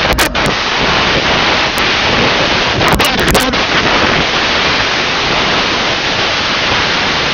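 Loud, steady hiss-like rushing noise that begins abruptly after silence, with a few sharp crackles in the first few seconds.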